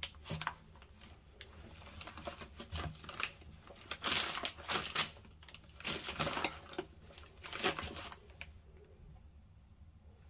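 Rustling and crinkling as a woven cloth drawstring bag is handled and pulled open, in irregular bursts that die down near the end.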